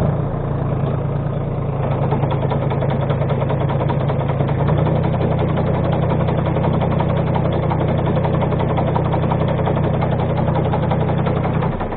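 Tractor engine running a tree shaker that is shaking a walnut tree, a steady drone with a dense rattle over it. The engine note steps up and gets louder about a third of the way in, and the shaking cuts off just before the end.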